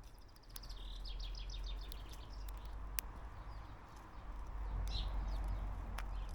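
A garden songbird singing a phrase of quick repeated high notes, with two sharp clicks and a steady low rumble underneath.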